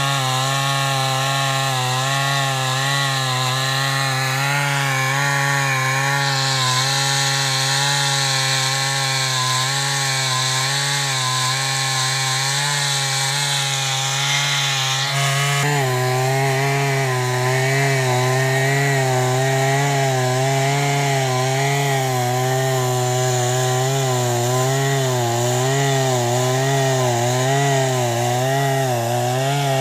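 Chainsaw running at high speed, ripping a log lengthwise into planks. Its note changes abruptly about halfway through, then wavers slightly up and down as the load on the chain changes.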